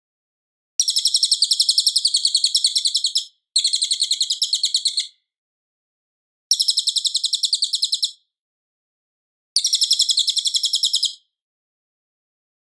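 Cililin song: four bouts of fast, high, trilled chirps, about ten notes a second, each bout lasting one and a half to two and a half seconds, with short pauses between them.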